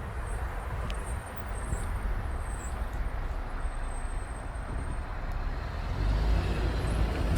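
2016 Toyota 4Runner rolling along, with steady road and tyre rumble that gets louder about six seconds in. A faint, thin, high-pitched squeak comes and goes above it, held for a second or so near the middle: the brake squeak and rubbing the owner hears stronger on the right side.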